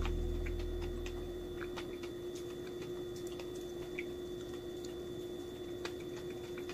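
A low music note dies away over the first second or so, leaving a faint steady hum with scattered small clicks and ticks.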